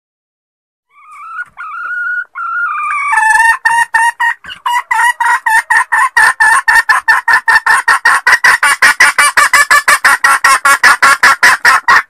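Red junglefowl hen calling. A few drawn-out rising notes about a second in are followed by a fast run of clucks that quickens steadily and then cuts off suddenly. It is the hen call used as a lure to draw in wild roosters.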